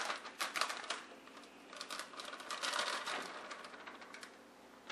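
Plastic bag rustling as shredded mozzarella is shaken out of it into a plastic mixing bowl, a quick run of small ticks and rustles in two spells that fade near the end.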